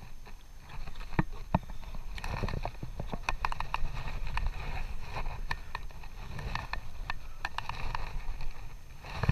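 Scattered clicks, knocks and scrapes of a climber's shoes and hands on rock and a fixed rope during a descent, picked up close by a chest-mounted action camera, over a steady low rumble.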